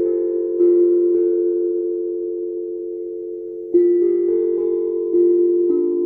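A 12-inch, 13-note steel tongue drum tuned in C, played note by note: single struck notes that ring on and slowly fade, overlapping one another. It plays two notes, rests while they ring for a couple of seconds, then plays several more from about four seconds in.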